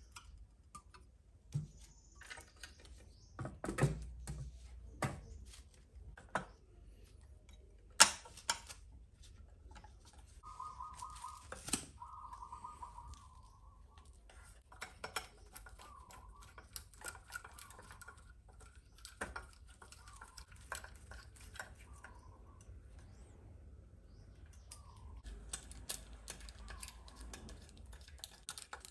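Scattered clicks, taps and small knocks of hard plastic and metal model parts and tools being handled during kit assembly, the sharpest about eight seconds in. A brief wavering tone sounds at about ten seconds and lasts some three seconds.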